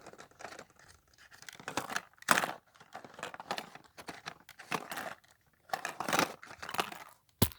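Hands working at a plastic surprise ball that won't open: irregular bursts of scraping and crinkling, then a sharp click near the end as it comes open.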